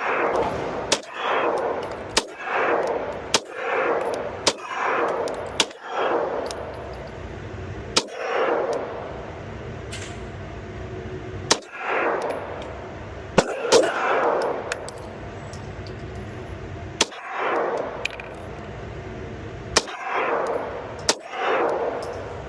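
Glock 17 9mm pistol fired as a string of single shots, one to three seconds apart. Each sharp report is followed by a short ringing echo.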